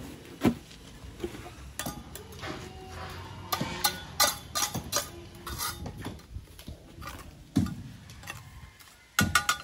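Masonry work on concrete hollow blocks: a steel trowel scraping and tapping wet mortar, with irregular clinks and knocks as blocks and tools are set down. A sharp knock comes right at the start, and a cluster of knocks comes near the end.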